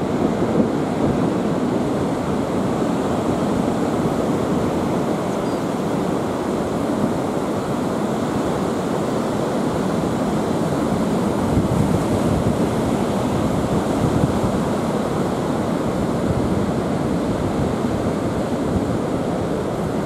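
North Sea surf breaking and washing up on a sandy beach: a steady, unbroken rush.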